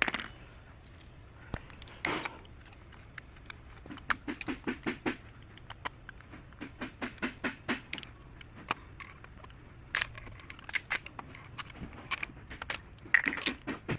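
Metal engine parts and hand tools clinking, scraping and knocking. A quick run of clicks comes about four seconds in, and more scattered clicks follow.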